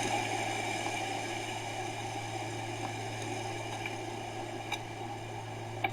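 Steady background hum and hiss, like a fan or electrical hum, with two faint ticks near the end.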